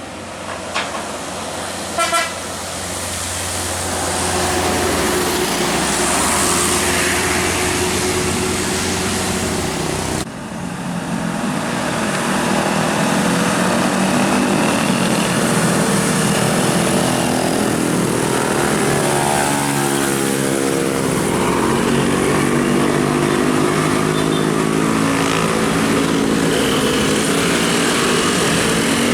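Basuri musical horn on a tour bus playing a tune: several horn notes sounding together and stepping from pitch to pitch, with a sliding passage partway through, over vehicle noise.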